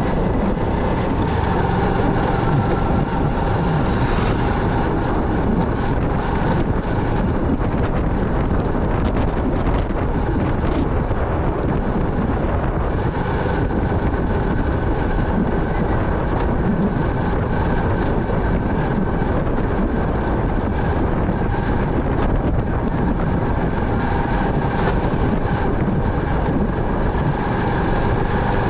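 A motorcycle running steadily while riding, with a continuous rumble of engine, road and wind noise.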